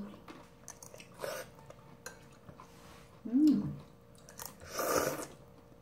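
Close-up eating sounds of instant ramyeon noodles: small wet chewing clicks throughout, a short hummed 'mm' a little past three seconds, and a half-second slurp of noodles just before five seconds.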